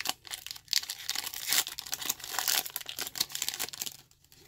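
Foil Pokémon booster pack wrapper being torn open and crinkled by hand, a dense crackling that stops about four seconds in.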